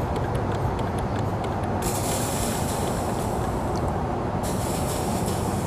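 Small DIY Stirling engine running on stored heat alone, its mechanism ticking about four to five times a second over a steady low rumble. A high hiss comes in about two seconds in and stops about two and a half seconds later.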